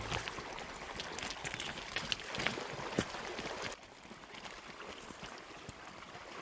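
Shallow water splashing and trickling around a dinghy at the water's edge, with scattered small clicks and knocks. The sound drops suddenly to a quieter level about three and a half seconds in.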